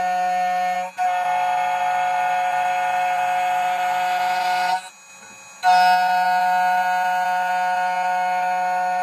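2M2 TANK2 PRO CNC key cutting machine's spindle running with a steady whine of several tones while it mills a HON66 key blank to width. A rougher cutting noise joins it from about a second in. The machine falls quiet for about a second midway and then runs again.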